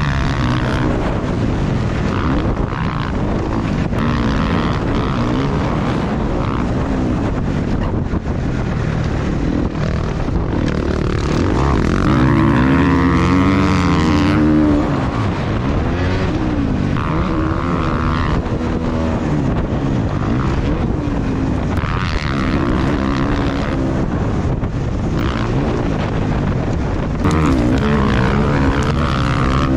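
Motor whine from a small camera drone's propellers, mixed with a dirt bike engine revving. The pitch rises and falls over and over, and it gets louder about twelve seconds in and again near the end.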